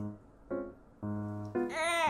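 Soft background piano music, a few single notes and a held note. Near the end a dog's whining howl comes in over it, its pitch arching up and then falling.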